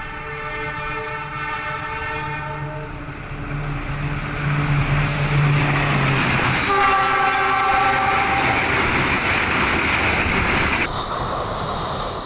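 CC 206 diesel-electric locomotive sounding its horn, a long chord that dies away about three seconds in, then a second blast of about two seconds as the train passes close by in a loud rush of engine and wheel noise.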